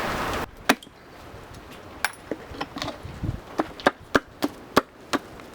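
A steady noise cuts off about half a second in. Then comes a run of about a dozen sharp knocks on wood, irregular, two or three a second.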